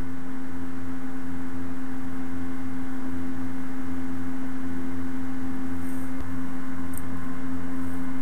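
A steady, loud low hum held at one pitch, with fainter overtones and no breaks.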